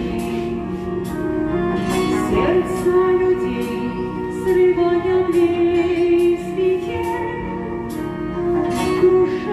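A woman singing a song into a handheld microphone, amplified, with long held notes.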